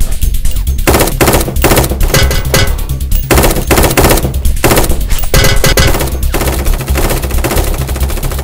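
Bursts of automatic gunfire: many shots in quick succession with brief gaps between bursts, over a steady musical backing.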